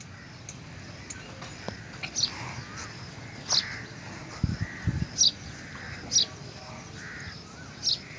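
Short, sharp bird calls, about six of them spaced a second or so apart, with two dull low thumps near the middle.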